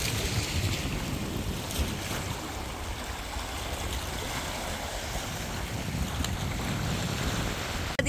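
Sea waves washing steadily over shore rocks, with wind rumbling on the microphone.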